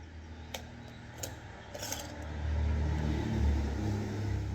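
Old home-canned glass jar being opened by hand: a few light clicks and clinks from the lid in the first two seconds, then a low rumble from about halfway through.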